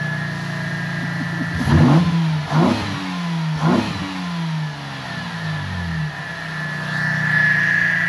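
2009 Pontiac G8's 3.6-litre V6 idling and blipped three times, quick revs about two, two and a half and nearly four seconds in, with a steady high whine over the engine note. The engine is being checked for its misfire after the upper intake gaskets were changed back to the originals.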